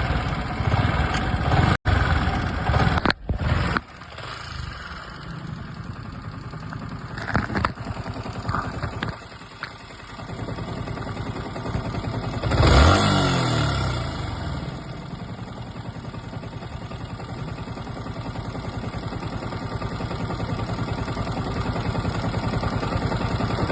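Yamaha R15 V3's 155 cc single-cylinder engine running with an irritating abnormal noise, as if something inside has broken. It is revved once briefly just past halfway, then settles back. The noise came from a failed one-way (starter) clutch.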